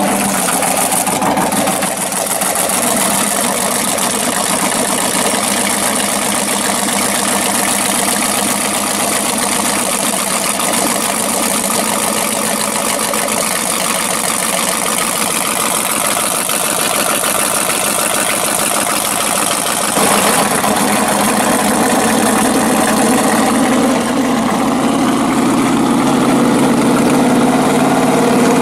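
Chevrolet 454 big-block V8 on an engine run stand, idling through short open exhaust pipes. It gets louder about twenty seconds in as the throttle is worked at the carburetor.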